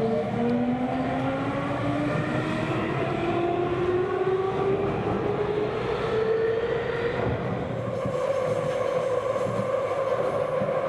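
Tokyu electric train's traction motors whining as heard from inside the carriage: several tones rise steadily in pitch as the train accelerates away from the station and level off about seven seconds in, over the steady rumble of the running train.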